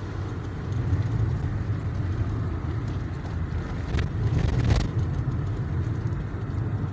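Car rumble heard inside the cabin: engine and tyre noise as the car drives on a dirt road. A knock comes about four seconds in, followed by a short burst of noise.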